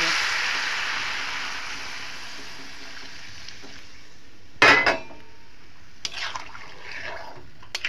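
Water poured into a hot wok of frying cauliflower and potato, hissing loudly and dying away over the first couple of seconds. About halfway through there is a loud metal clank, followed by a few lighter clinks of pots and utensils.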